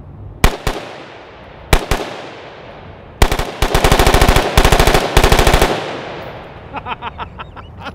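Gunfire from a BCM AR-15 rifle with an Echo binary trigger, which fires once on the pull and once on the release. Two quick pairs of shots come first, then a fast string of shots lasting about two and a half seconds with two short breaks.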